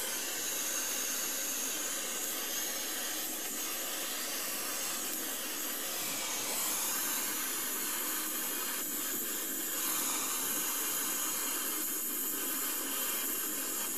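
Handheld gas torch burning with a steady hiss, its flame heating a copper plate and tube for soft soldering.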